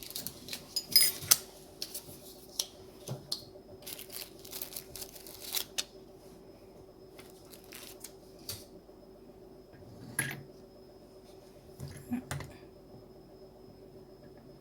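Sharp clicks and clacks of metal and plastic parts being handled at a 1.25-inch hand-operated button maker, two loud clacks about a second in, then scattered lighter clicks.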